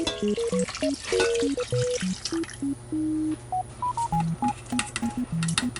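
Light background music: a bouncy melody of short, plain beeping notes, with a brief stretch of hissing noise under it about a second in.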